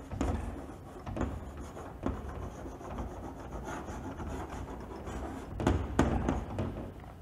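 Chalk writing on a chalkboard: a run of short scratching strokes, with a few sharper taps, the loudest a little before the end.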